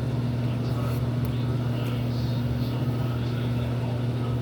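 Steady low hum with no change in pitch or level, with faint indistinct sounds over it.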